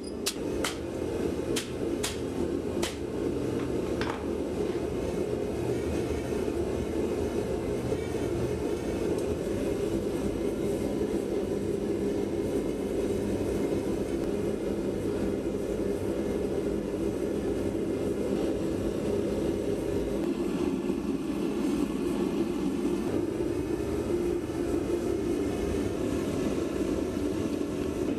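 A few ringing hammer blows on the anvil in the first few seconds, then a forge running steadily with a constant low rushing noise.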